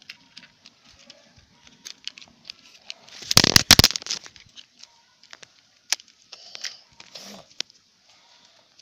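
Light clicks and scrapes of small plastic toy trucks being handled and pushed on a concrete floor. About three seconds in, a loud rustling rub from the recording phone being handled lasts nearly a second.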